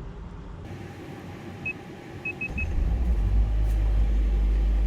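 A few short electronic beeps, then about two and a half seconds in a low rumble from the 2024 Hyundai Alcazar's 1.5-litre diesel engine rises over half a second and holds steady.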